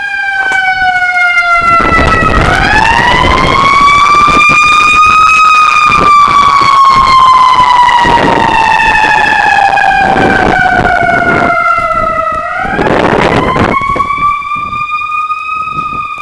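Emergency vehicle siren wailing loudly in slow cycles. Its pitch sinks gradually, then sweeps back up, once about two seconds in and again about two-thirds of the way through. A loud low rumble runs under it from about two seconds in.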